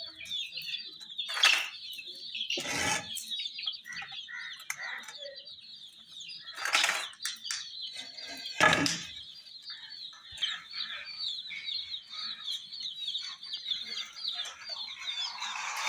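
A brood of baby chicks peeping continuously, many short high chirps overlapping. Four loud, brief rustling noises break in among them.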